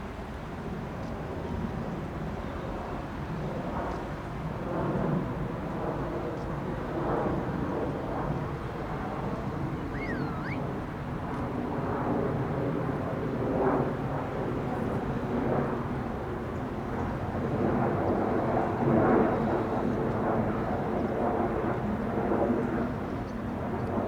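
Boeing 737-400's CFM56 jet engines on approach to land, heard from the ground: a steady drone with several held engine tones, growing slowly louder.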